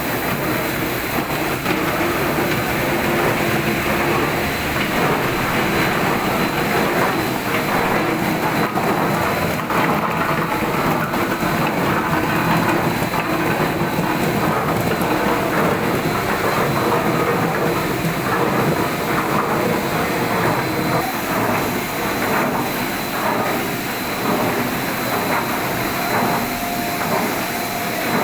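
A carrot washing machine running: a steady, dense clatter of carrots tumbling and knocking inside it, with a faint steady high whine from the machine.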